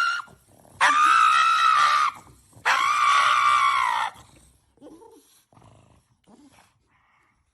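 An agitated pug giving two long, high-pitched wails, each about a second and a half long, followed by a few faint short sounds.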